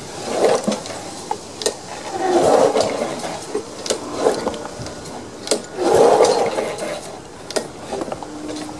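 Recoil starter of a Honda engine on a Snapper Ninja lawn mower being pulled three times, each pull a whirring rush as the rope spins the engine over without it firing, with sharp clicks between pulls. The engine turns over freely again after being seized.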